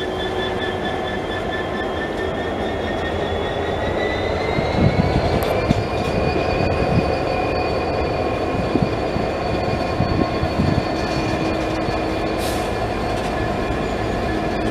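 Two Class 66 diesel freight locomotives working hard as they pass, their two-stroke V12 engines running with a high turbocharger whine that rises in pitch about four seconds in. Low knocks of wheels over the rails come through for several seconds in the middle.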